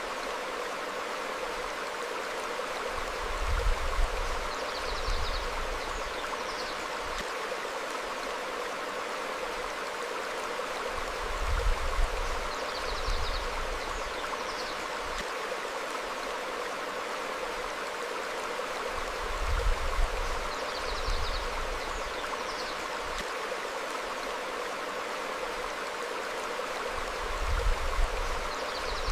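Small stream flowing steadily over rocks, with a low rumble swelling briefly about every eight seconds and faint high bird chirps on the same repeating cycle.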